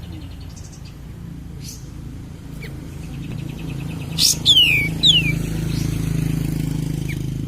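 Kapas tembak songbird calling: a rapid buzzy trill and a few short chirps, then about four seconds in two or three loud, sharp whistles that slide downward. A steady low hum runs underneath.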